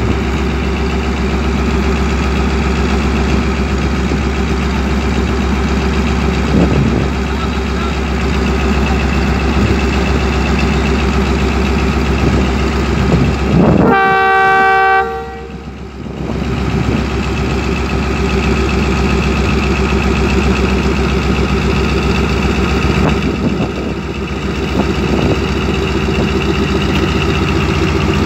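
ZCU-30 diesel-electric locomotive idling with a steady low engine drone. About halfway through, a train horn blows once for about a second.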